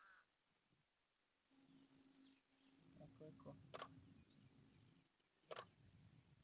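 Near silence over still water with a faint steady high hiss, broken by two sharp clicks a little under two seconds apart: the shutter of a Canon 7D DSLR firing.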